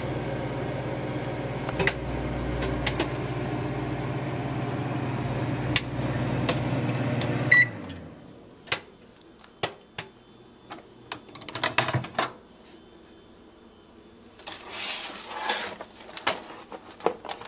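Microwave oven running with a steady hum while popcorn pops inside the bag in scattered sharp pops. About seven and a half seconds in the hum cuts off abruptly with a short high beep, and a few more pops and some rustling follow.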